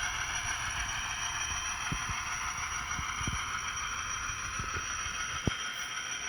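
Digital diesel-locomotive engine sound from an ESU LokSound Select Micro decoder in an N-scale GP60 model, played through its tiny speaker with a steady, thin tone while the model runs at a low throttle step. A few sharp clicks sound over it, the loudest about five and a half seconds in.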